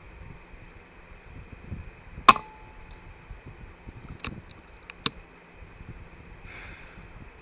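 A single shot from a Daystate Red Wolf .22 pre-charged pneumatic air rifle, a sharp crack with a short ring after it, followed by two fainter sharp clicks about a second apart.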